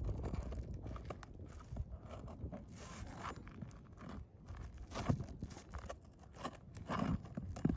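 Irregular scraping, crunching and knocking of a pry tool working under asphalt shingles to pull out roofing nails, with a few sharper knocks about five and seven seconds in.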